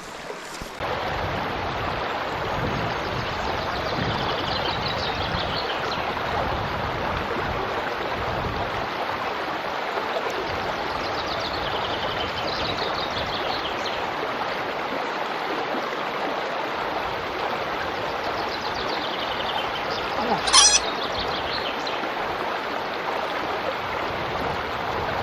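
Steady rush of water from a small stream. A bird's short descending trill sounds several times over it, and a brief louder sound comes about twenty seconds in.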